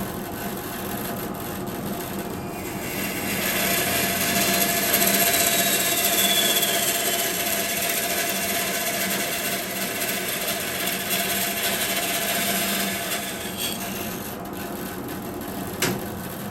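Bandsaw running with a steady motor hum, its blade cutting through wood from about three seconds in until shortly before the end. There is a short knock near the end.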